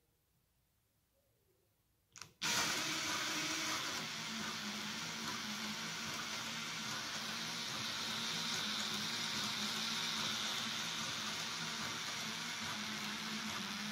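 Near silence, then a short click about two seconds in and a cordless drill whirring steadily as it spins an NSU Maxi 175's Ultramax cam drive, the eccentric connecting rods that turn the overhead camshaft from the crank gear.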